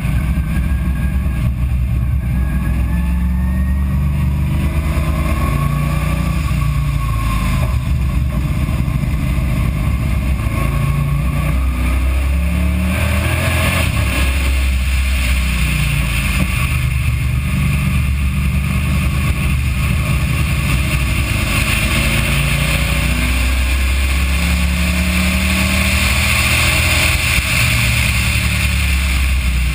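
Race car engine accelerating hard around a track lap, its note rising and falling with throttle and a gear change, under heavy wind noise on the camera microphone that grows as the speed climbs.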